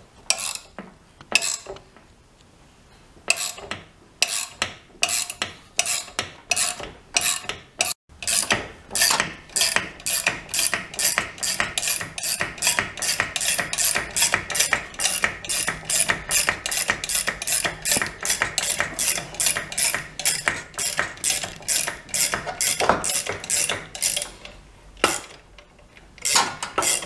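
Ratchet wrench clicking in a long, even run, about three clicks a second, as it turns the bolt of a home-made puller drawing a rusted-on PTO clutch/brake off a riding mower's crankshaft. The clicking starts after a short pause about three seconds in.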